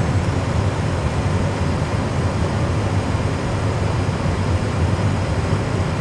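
Steady low rumble with a hiss over it in the cockpit of an Airbus A320 full flight simulator: the simulated engine and airflow noise of the aircraft in flight.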